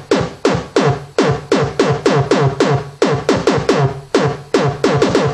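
Distorted synthesized kick drum from the Massive software synth, played as a quick run of repeated hits, about three to four a second in an uneven rhythm. Each hit starts hard and drops sharply in pitch, with tube distortion and the amp and filter levels at maximum for a stronger attack.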